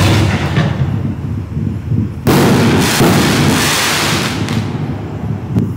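A 6-inch canister firework shell thumps out of its mortar tube at the start. About two seconds later a shell bursts with a loud bang that trails off in a long rumble.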